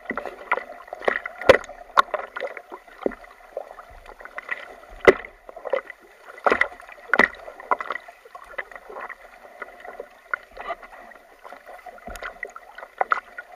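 Water splashing and slapping against a surfboard as a child lying on it kicks her feet, in irregular sharp splashes over a steady wash of choppy water.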